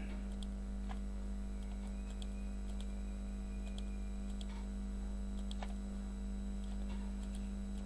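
Steady electrical hum on the recording, with a few faint computer-mouse clicks scattered through it as edges are selected.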